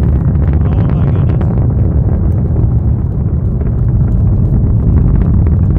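Falcon 9 rocket's first-stage Merlin engines heard from miles away as the rocket climbs: a steady, loud, deep rumble with some crackle.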